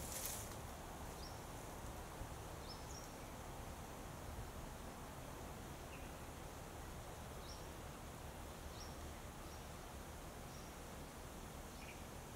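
Faint outdoor ambience: a steady low background hum with short, high chirps from small animals every second or so at irregular intervals. A brief noisy rustle comes right at the start.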